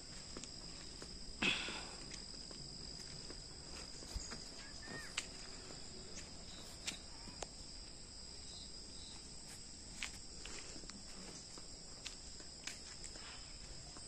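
Insects outdoors hold two steady high tones, faint, throughout. Over them come soft, irregular footsteps going down outdoor stairs, with a louder knock about a second and a half in.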